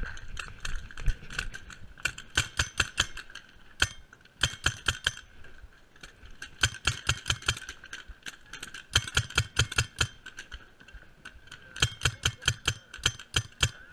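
Paintball marker firing in rapid strings of shots, several a second, in about five bursts with short pauses between them.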